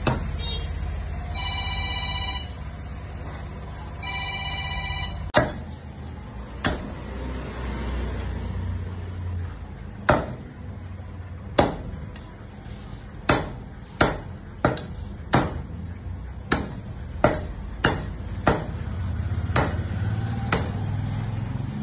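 A heavy cleaver chopping chicken on a wooden tree-stump block: about fifteen sharp chops from about five seconds in, coming quicker toward the middle. Before the chopping starts, an electronic ringing tone sounds twice, each time for about a second.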